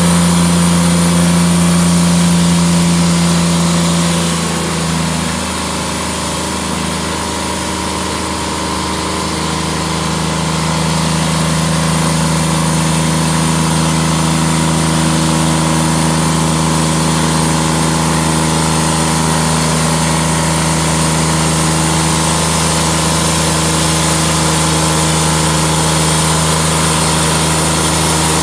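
Portable bandsaw sawmill running, its engine's pitch sagging about five seconds in and settling back to a steady note a few seconds later.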